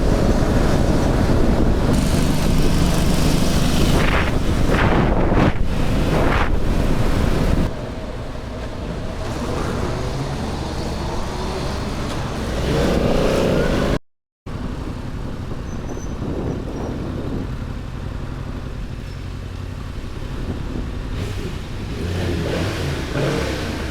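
Motorcycle riding at speed, its engine running under heavy wind noise on the camera microphone. About halfway through the sound cuts off abruptly and resumes as a quieter stretch of engine and road noise.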